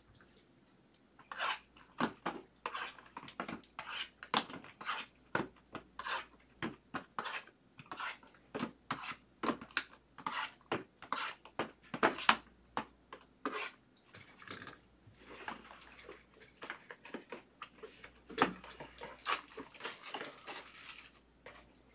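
Shrink-wrapped cardboard trading-card boxes being handled and shifted on a table, with many short taps and clacks. Later, plastic shrink wrap crackles as it is torn off a box.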